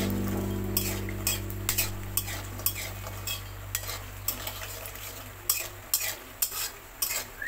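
A flat spatula stirring and scraping mashkolai (urad) dal bori as they fry in hot oil with panch phoron in a large metal kadai. Repeated short scrapes and clicks of the spatula on the pan sound over the sizzle of the oil while the bori brown.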